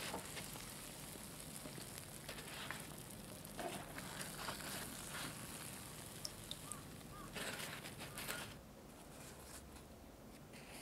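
Donuts deep-frying in hot oil: a steady sizzle and crackle, with a few light clicks as wooden chopsticks turn them and lift them out. The sizzling stops after about eight seconds.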